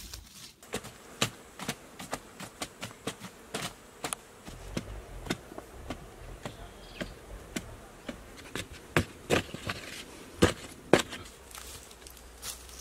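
Irregular sharp knocks of a long digging bar striking and breaking up hard sandy soil, a few a second, with the loudest strikes in the second half.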